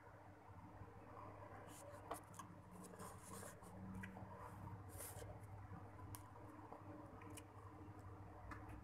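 Faint sounds of a person eating noodles: short slurps and small mouth and utensil noises scattered through, over a low steady hum.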